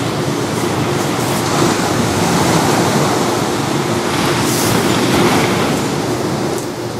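Ocean surf washing onto the beach below, a steady rushing wash that swells a little twice in the middle, over a faint steady low hum.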